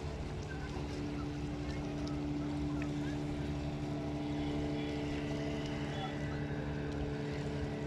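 Motorboat engine running steadily at an even pitch, with water noise beneath it.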